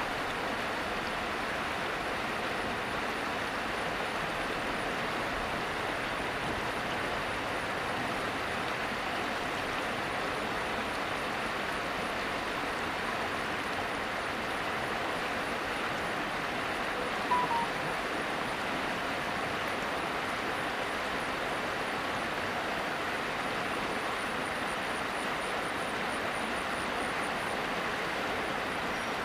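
Steady rush of a fast-flowing river, with one brief high chirp a little past halfway.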